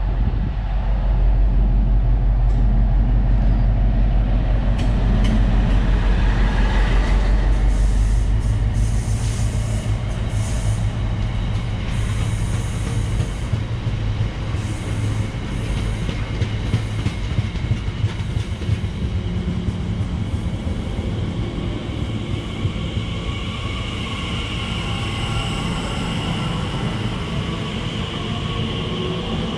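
A train passing close by. A loud, steady low drone for the first eight seconds or so gives way to rushing wheel-on-rail noise with clicks, and a high squealing tone comes in over the last several seconds.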